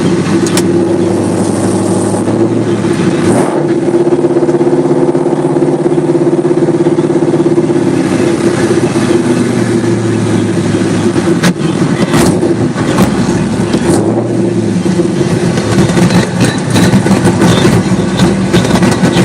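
Camaro's swapped-in LQ4 6.0-litre V8 running under way, its steady note changing pitch a few seconds in and again a little past halfway, with scattered sharp clicks in the second half.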